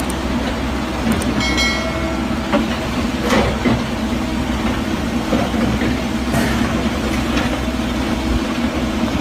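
Tracked heavy equipment such as an excavator or bulldozer working: a steady diesel engine rumble with metallic clanks from the crawler tracks. A short high squeal comes about a second and a half in.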